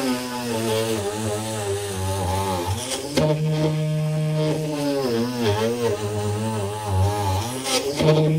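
24-volt DC motor of a homemade mini drill press running, its pitch wavering and dipping now and then as load comes on and off.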